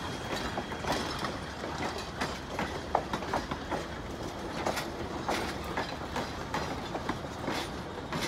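Passenger coaches rolling slowly past, their steel wheels clicking and clanking irregularly over the rail joints and the level crossing, over a steady rolling rumble.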